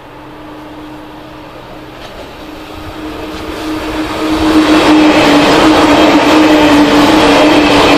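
SBB ICN tilting electric express train coming out of a tunnel and passing close by at speed. It swells from distant to loud, reaching full strength about four and a half seconds in. A steady electric whine from the drive dips slightly in pitch over the rushing noise of wheels on rail.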